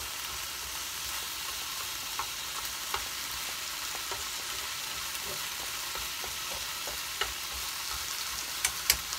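Broccoli sizzling in a frying pan as it is stir-fried with chopsticks: a steady hiss with occasional light clicks, two sharper ones near the end.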